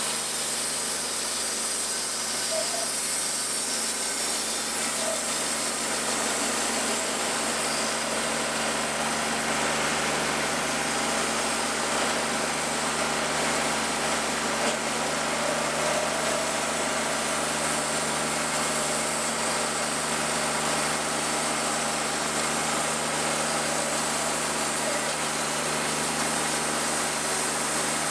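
Wood-Mizer portable band sawmill running at a steady high engine speed, its band blade cutting through a maple log.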